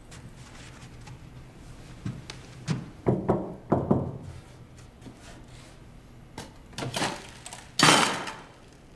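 A run of hard knocks and thuds at uneven intervals, in two clusters, ending with the loudest, a longer scraping thud near the end.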